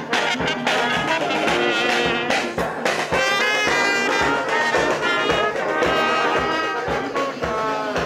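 Brass music, with trumpets and trombones playing a tune over a steady beat.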